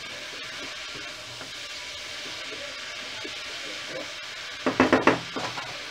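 Shredded cabbage, carrots and potatoes sizzling in an aluminium pot while a wooden spoon stirs them, with light scrapes and knocks against the pot. About five seconds in, a brief loud burst of pitched sound cuts in.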